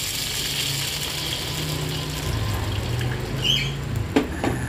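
Tamarind water poured from a plastic container into a wok of hot oil and fried garlic, a steady splash of liquid filling the pan. A brief squeak comes about three and a half seconds in, then two sharp knocks of the metal ladle against the wok a little after four seconds.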